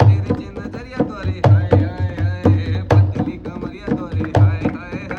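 Indian folk music: a drum beats a quick, steady rhythm of deep strokes and sharp slaps, under a melody whose pitch wavers up and down.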